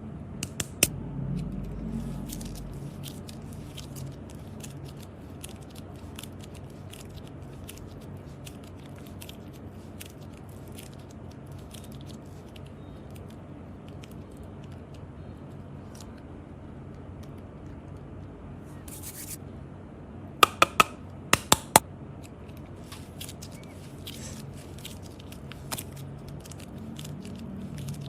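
Light, scattered clicks and taps over a steady low hum, with a quick run of about five sharper clicks about twenty seconds in.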